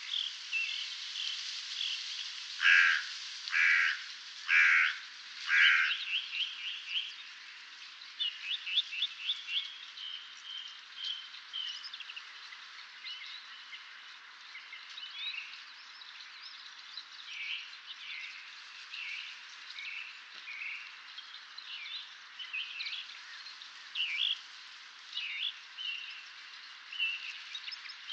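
Dawn chorus of several birds singing and calling, with short calls and trills overlapping. The loudest part is four calls about a second apart, about three seconds in.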